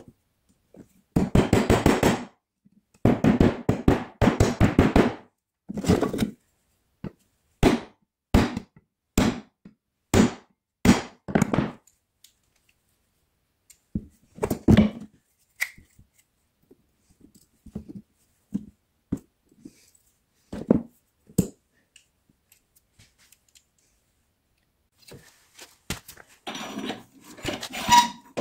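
Metal clicks, knocks and short scrapes from a steel rod and its worm-gear bracket being handled and worked on a wooden workbench. Two dense spells of rattling and scraping come in the first few seconds, then single knocks about every second, and another busy spell near the end.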